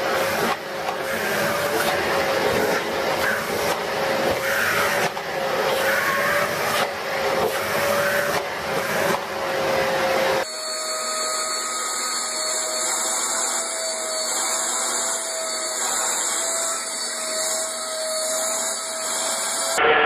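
Vacuum cleaner motor running, a steady whine that wavers slightly over a rushing noise. About halfway through it cuts to another vacuum cleaner with a slightly higher whine.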